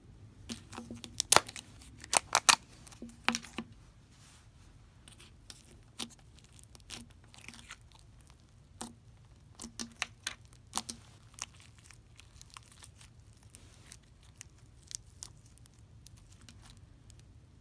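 Green glittery slime pressed and squeezed by hand, giving sharp crackling clicks and pops. They come thick and loud for the first few seconds, then scattered and softer.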